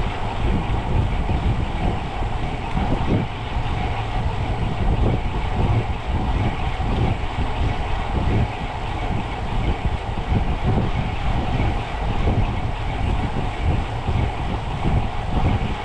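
Steady wind buffeting on the microphone with the rolling rumble of tyres on the road, as heard while riding a bicycle.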